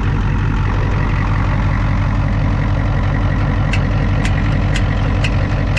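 Ford 6.9 IDI V8 diesel idling steadily. From about halfway through, a sharp click repeats about twice a second.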